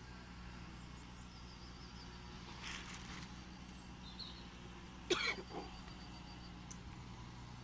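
A man coughs about five seconds in: one sharp cough followed by two smaller ones, over a steady low background hum.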